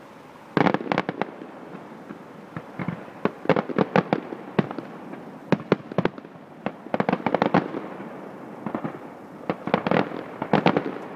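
Fireworks going off in rapid clusters of sharp bangs and cracks, several volleys in a row.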